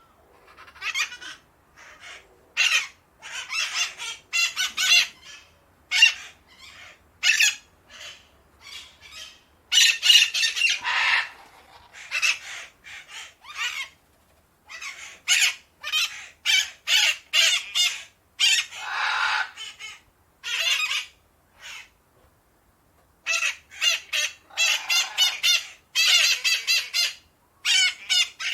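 Ducks quacking on a pond, with many short, harsh calls, some single and some in quick runs of several, coming and going with short pauses between.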